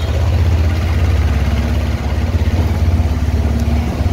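Motorcycle engine running with a steady low hum as it rides along, over a noisy haze of road and wind noise.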